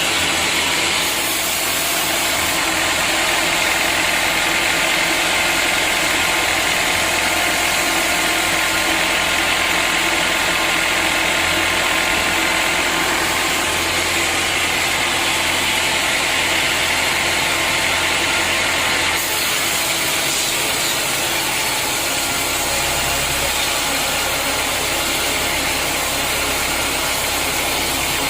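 Sawmill machinery running steadily and loud: a log saw and its drive motor, a dense hiss with a high whine. The tone shifts slightly about two-thirds of the way through.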